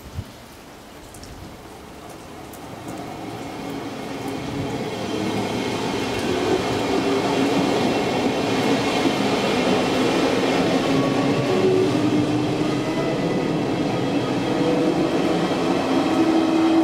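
SL X10p electric multiple unit pulling out and running past on the rails. The rumble of its wheels and running gear builds over the first several seconds, then stays loud and steady, with whining tones held in it.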